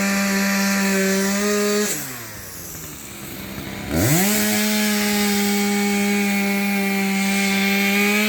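Chainsaw running at full throttle with a steady high whine. About two seconds in the throttle is let off and the pitch drops away; about two seconds later it revs sharply back up and holds steady again.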